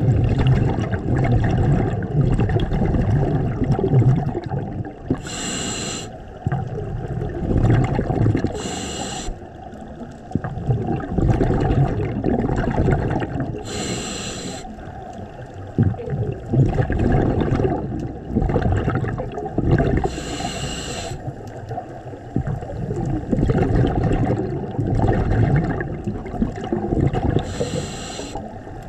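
Scuba regulator breathing underwater: five short hissing inhales a few seconds apart, with the bubbling rumble of exhaled air between them.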